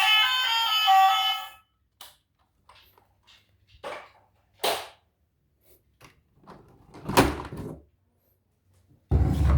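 Background music with plucked strings that stops about a second and a half in, then scattered short knocks and rustles of handling, the loudest about seven seconds in; a loud low noise sets in near the end.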